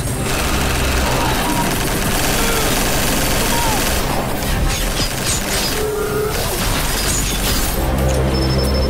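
Action-film soundtrack: a dense wall of crashing, rumbling and booming sound effects laid over music.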